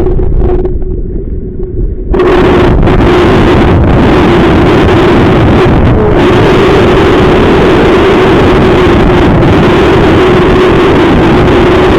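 Strong wind buffeting the microphone, loud and rough, with a steady hum running underneath. The wind noise eases and turns duller for the first couple of seconds, then comes back full.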